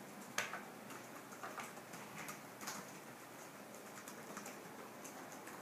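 Faint, irregular small clicks and taps of students taking notes, a few a second over quiet room hiss, the sharpest about half a second in.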